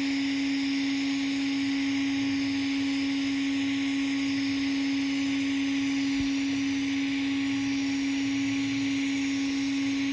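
TIG (GTAW) welding arc on carbon steel pipe during the final cap pass at 140 amps: a steady hum with an even hiss above it.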